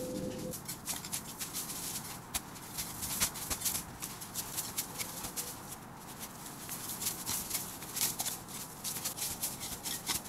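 Small shovel scooping and scraping through snow in quick, irregular crunches as snow is piled onto a shelter.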